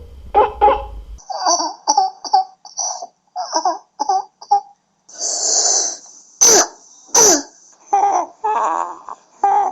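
A young child's barking, seal-like croup cough: runs of short hoarse coughs, about three a second, with a long noisy breath about five seconds in and two sharper coughs after it. This cough is the typical sign of croup, the upper airway narrowed by swelling of the larynx and trachea.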